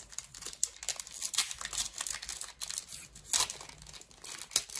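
Foil wrapper of a Pokémon TCG Evolving Skies booster pack being torn open and crinkled by hand: continuous crackling with a few louder rips.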